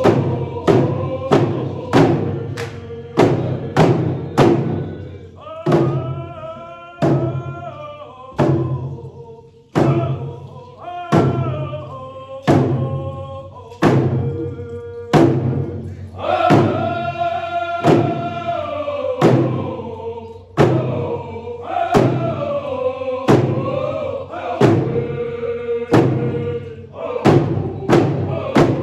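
A group of voices singing a Coast Salish canoe family song in unison over hand drums beaten on every beat. The drum strokes come about twice a second, slow to about one a second for a stretch in the middle, then pick up again.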